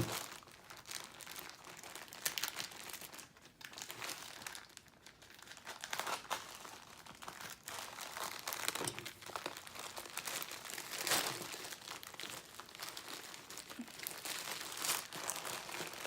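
Parcel packaging being opened and handled, crinkling and rustling in irregular bursts with some tearing.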